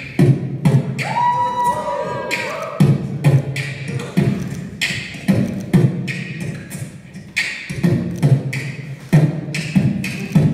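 Beatboxer performing: vocal kick-drum and snare sounds in a steady beat, with a held, gliding hummed tone about a second in.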